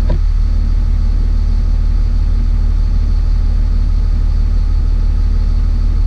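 Diesel motorhome engine idling steadily: a loud, even low drone with a fine, rapid pulse.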